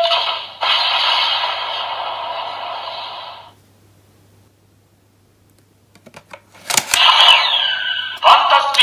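Electronic sound effects from the DX Valvarusher toy's built-in speaker: a dense burst of sound that fades out over about three and a half seconds, then a short silence. A few sharp plastic clicks of the toy being handled follow, and a new loud burst of electronic effects with sliding pitches starts near the end.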